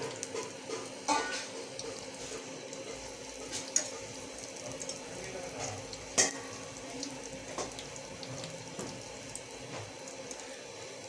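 Fritters of lentil batter sizzling in hot oil in a steel pot: a steady crackling hiss. A spatula knocks against the pot three times as the fritters are turned.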